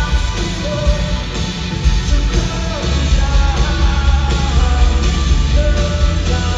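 Indie rock band playing live, loud, with heavy bass and drums under guitar.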